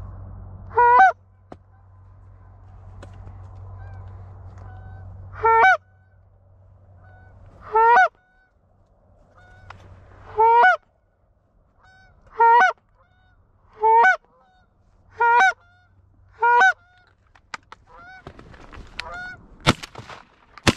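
A hand-blown Canada goose call sounding about eight short honks, each with a quick break in pitch, spaced one to three seconds apart: a hunter calling to a passing Canada goose. Near the end, rustling and a sharp click.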